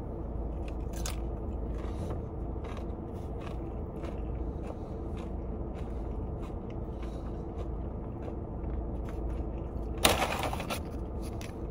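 Chewing and small crunching mouth sounds from eating a salad bowl, over a steady low hum inside the car. About ten seconds in, a brief louder scrape as the arm and paper bowl move close to the microphone.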